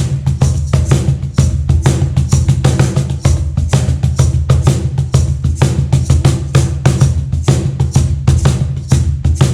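Meinl cajon played by hand in a fast, steady groove: deep bass strokes mixed with sharp slaps, several strokes a second.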